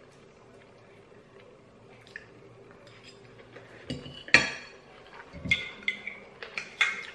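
Metal fork clinking and scraping against a ceramic bowl of noodles while eating, with chewing. Quiet for the first few seconds, then a sharp clink about four seconds in and a run of smaller clinks near the end.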